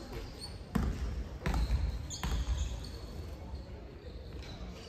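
Basketball bouncing on a hardwood gym floor: three thuds about three-quarters of a second apart in the first half, echoing in the hall.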